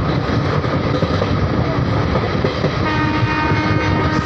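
Steady rumble of a moving train, with a train horn sounding one steady note starting about three seconds in.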